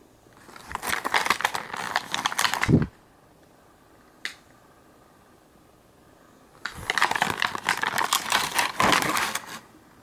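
Close crinkling and rustling of something being handled, in two bursts of two to three seconds; the first ends in a dull thump, and a single click falls between them.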